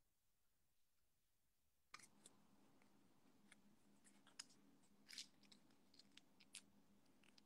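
Near silence: faint room tone. A low hum comes in about two seconds in, with scattered faint clicks over it.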